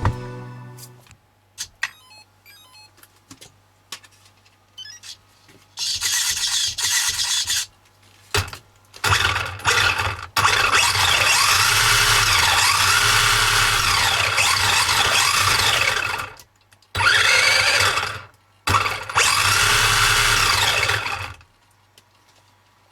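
Electric motor whirring in several bursts of one to six seconds, its high whine rising and falling in pitch as it speeds up and slows down.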